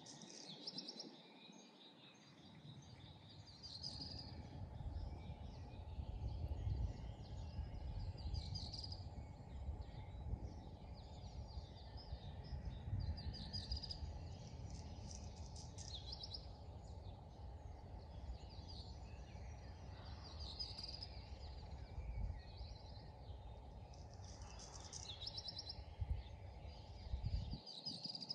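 Small birds singing in short, repeated chirping phrases, over a gusty low rumble of wind on the microphone that sets in about two seconds in and drops away just before the end.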